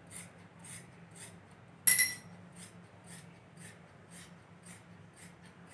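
Large tailoring scissors cutting through thick printed fabric in even snips, about two a second. One sharp, ringing clink about two seconds in.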